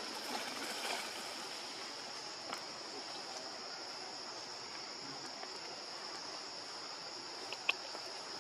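Steady high-pitched drone of insects, cicadas or crickets, over an even background hiss, with one sharp click near the end.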